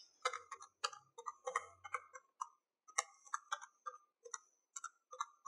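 Calculator keys being pressed in quick, irregular succession: about twenty short plastic clicks as a figure is keyed in.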